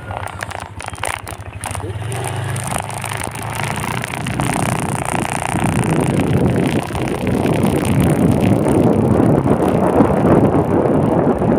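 Wind rushing over the microphone of a rider moving along a road, with vehicle and road noise underneath; the rushing grows louder about halfway through.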